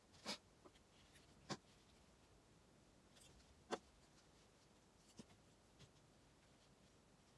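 Near silence broken by a handful of brief, faint rustles and taps as hands handle a bunched T-shirt and its ties; the sharpest comes just before the middle.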